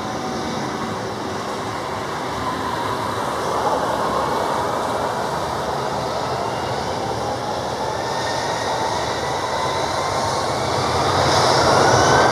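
Jet engines of a Super Air Jet Airbus A320 spooling up for takeoff on a wet runway: a steady roar, with a whine that rises in pitch and grows louder near the end.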